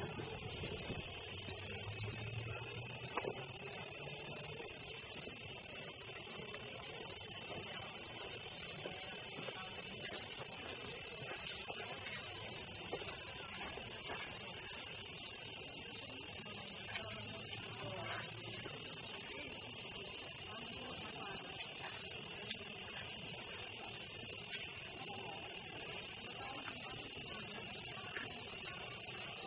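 A chorus of cicadas: a steady, high-pitched drone without a break.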